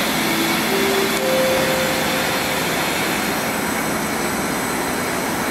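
A car ferry's engines and deck machinery running with a steady, even roar. A few short faint tones sound in the first couple of seconds.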